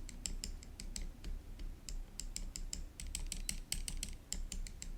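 Large stabilized keys on a GoPolar TKL mechanical keyboard with Geon Azure Dragon tactile switches, such as the shift and backspace, pressed over and over in quick, uneven clicks, a few a second. The key tests are checking for stabilizer rattle, and these keys are judged kind of okay.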